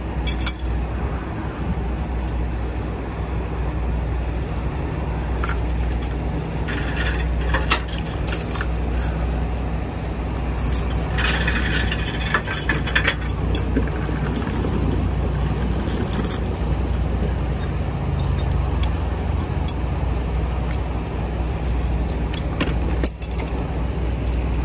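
Heavy truck diesel engine idling steadily, with tow chains clinking and scraping in bunches as they are unhooked from the semi's front axle and gathered up.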